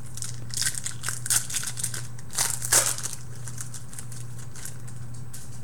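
Plastic trading-card pack wrappers crinkling and tearing as they are pulled open by hand. A run of crackling rustles comes in the first three seconds, the loudest just before three seconds, then it goes quieter, with a steady low hum underneath.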